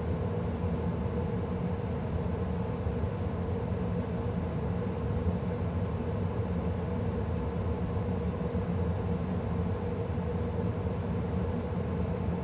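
2013 Carrier gas furnace running steadily in mid-cycle. The blower rushes air with a steady low hum.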